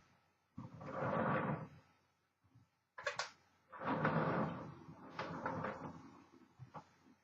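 Two sharp clicks, each followed by about a second of sliding, rattling noise, then a few lighter clicks, consistent with a 1959 Smith Corona Silent Super typewriter's carriage being pushed back across.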